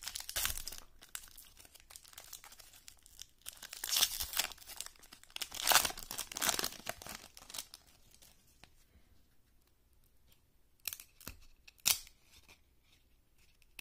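Foil wrapper of a 1997 Playoff Contenders football card pack being torn open and crinkled by hand, in several rough ripping bursts through the first seven seconds or so. Near the end, a few sharp taps as the cards are pulled out and handled.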